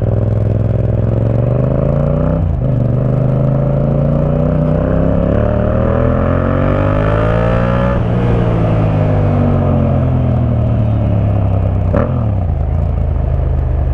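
Yamaha MT-07 parallel-twin engine through an Akrapovic 2-in-1 carbon exhaust, accelerating on the road. The revs climb for several seconds, with a short break about two and a half seconds in, then fall away as the throttle is closed. A short sharp crack comes near the end.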